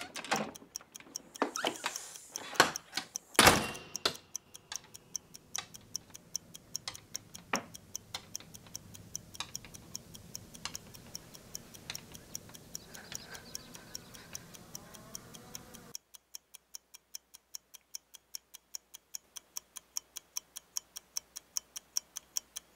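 A clock ticking with a steady, even beat. Several sharp knocks sound in the first few seconds, the loudest about three and a half seconds in. The background drops away about two-thirds of the way through, leaving the ticking alone.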